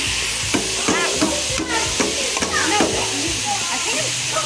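Meat sizzling in a frying pan, with the clicks and scrapes of a utensil stirring it several times.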